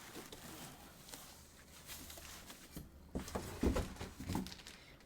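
Packaging being handled: light rustling and scraping of styrofoam packing and cardboard, with a cluster of louder knocks about three to four and a half seconds in.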